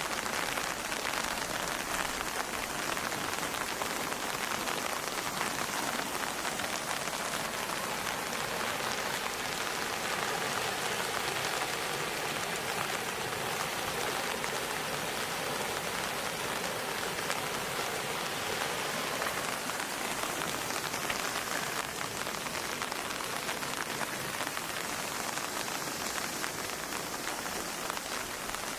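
Steady rain falling on a surface, a continuous patter of many fine drops.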